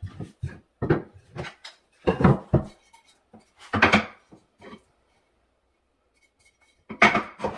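Knocks and clatter of wood pieces and tools being handled and set down: a string of separate bangs with pauses between, the loudest about two and four seconds in and again near the end, with a quiet spell before that last one.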